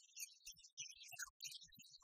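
Near silence, with only faint scattered crackle.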